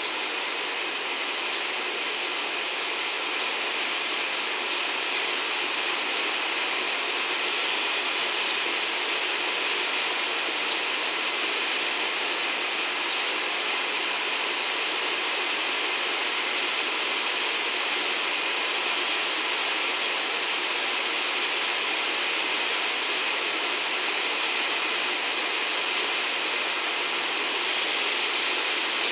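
JR Freight EF210 electric locomotive approaching slowly at the head of a freight train. It makes a steady rushing running noise that grows slightly louder.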